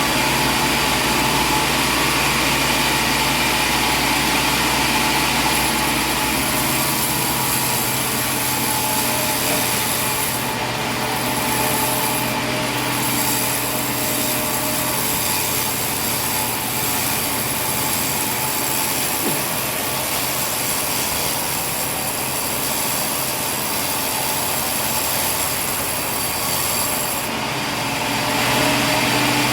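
Sawmill machinery running steadily: a loud, even mechanical noise with steady hums under it.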